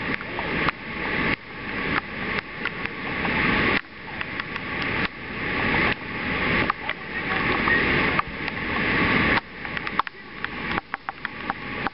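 Muddy floodwater rushing across a paved road: a steady rush of noise that swells and then drops off abruptly every second or so, with scattered clicks.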